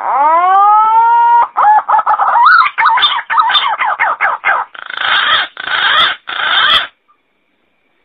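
Green pigeon (punai) call: a loud whistle that rises and then holds, followed by a run of wavering, warbled notes and three harsh, noisy notes.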